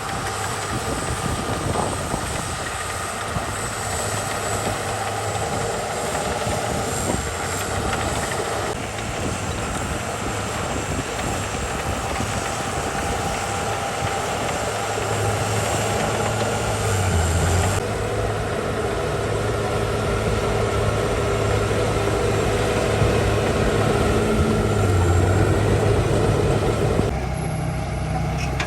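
Diesel engines of heavy earthmoving machinery, a crawler bulldozer and a dump truck, running steadily at work. The sound shifts abruptly about a third of the way in, around two-thirds of the way and again near the end.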